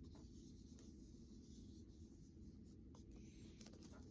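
Near silence with faint rubbing and a few light clicks from the Blu-ray case being handled.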